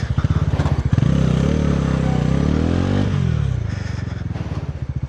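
Bajaj Pulsar NS400Z's single-cylinder engine running under throttle, its revs falling away about three seconds in and settling into slow, steady low-rpm running.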